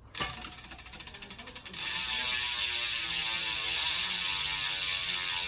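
Industry Nine Hydra rear hub freewheeling as the wheel is spun: a knock, a short run of separate clicks, then from about two seconds in a loud, steady, high-pitched ratchet buzz as the wheel coasts, the sound of the hub's very fine pawl engagement.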